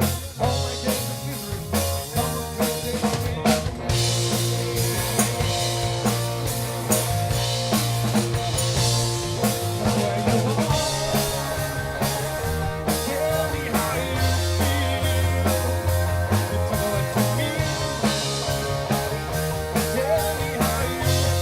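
Rock band playing live, an instrumental passage without singing: a drum kit keeping a steady beat under held bass notes and guitar.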